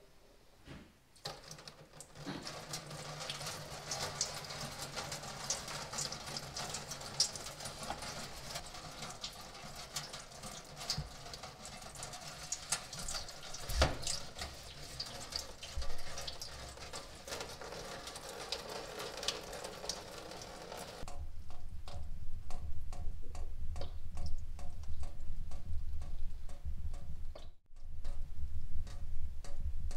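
Engine coolant pouring from a Porsche 944's engine-block drain hole and splashing into a metal catch pan. The steady splashing starts about a second in and stops about twenty seconds in. It gives way to a low hum with a run of quick, evenly spaced ticks.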